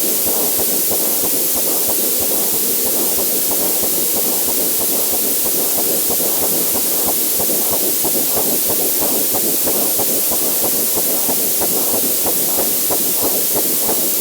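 Fetal heartbeat as heard on ultrasound audio: a fast, even pulsing over a steady hiss.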